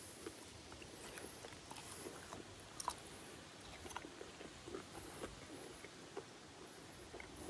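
A person chewing a piece of tough smoked octopus: faint, scattered mouth clicks and smacks, the loudest about three seconds in.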